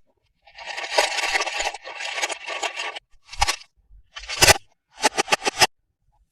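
Toy packaging being handled: a crinkling of plastic for about two and a half seconds, then a few sharp clicks, ending in a quick run of five.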